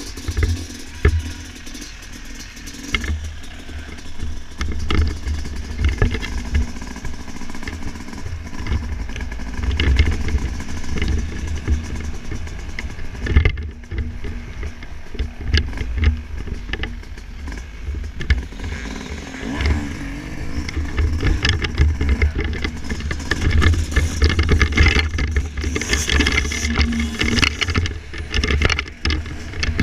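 Yamaha YZ250 two-stroke motocross bike engine running as it is ridden, the loudness rising and falling, with many short knocks and a heavy low rumble on the helmet-mounted camera.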